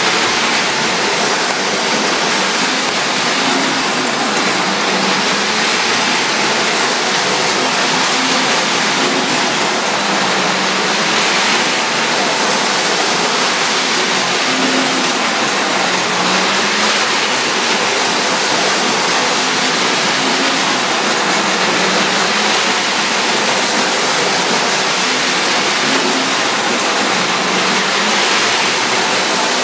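Marx tinplate toy trains running on metal track: a steady rumble and rattle of wheels and motors. Under it a hum rises and falls in pitch every few seconds.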